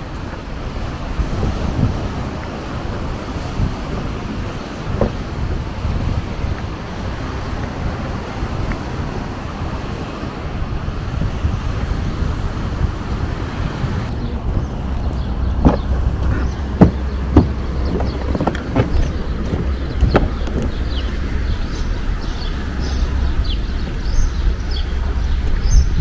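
Outdoor seaside ambience: a steady rush of wind on the microphone. About halfway in it changes to a deeper low wind rumble, with scattered sharp knocks and a few faint high chirps near the end.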